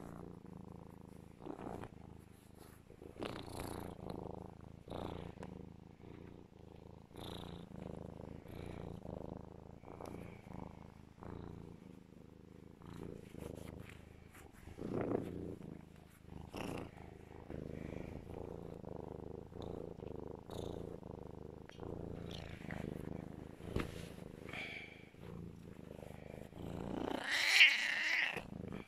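Serval purring very loud and steadily while cuddled, the purr swelling and easing with each breath. Near the end comes a short, louder chirp.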